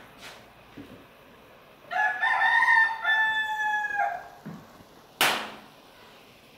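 A rooster crowing once: one long call of about two seconds, starting about two seconds in. A single sharp knock follows about five seconds in.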